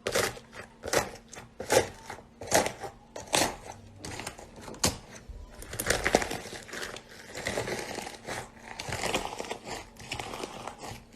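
Slime being pressed and squished by hand, giving sharp popping snaps about once a second for the first few seconds, then a denser run of crackling.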